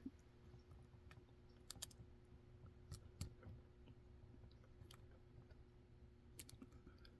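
Faint, scattered clicks and ticks of a hook pick working the pins inside a Zeiss Ikon (Assa Abloy) pin-tumbler lock cylinder under tension, a few small clicks spread over several seconds with near silence between them.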